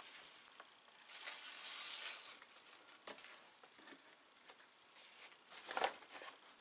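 Faint rustling and rubbing of stiff Dacron sailcloth and its adhesive-backed patch under the hands as the patch is pressed and smoothed down, with a few light taps and a sharper one near the end.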